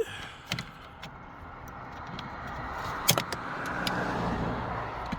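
Hands working on car interior parts: a few sharp plastic clicks and knocks, the loudest a double click about three seconds in, over a rustling scrape that builds through the second half.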